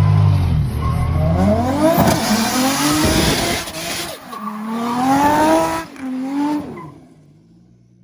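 Car engine revving up twice with tyres squealing, then fading away near the end.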